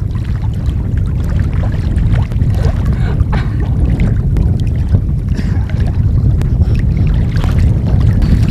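Wind buffeting the microphone in a steady low rumble, with sea water lapping and small splashes around a man wading waist-deep.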